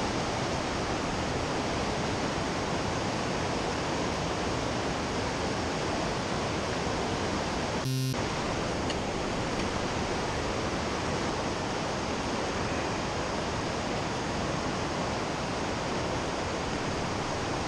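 Fast creek rapids rushing steadily, an even roar of whitewater, with a brief click about halfway through.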